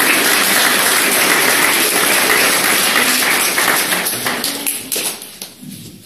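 A roomful of people clapping, a dense patter of many hands that fades away over the last two seconds.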